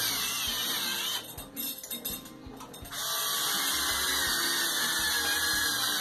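Cordless drill-driver whirring steadily as it drives hex-head fixing bolts into plugs in a concrete ceiling. It stops for about two seconds a second in, then runs again.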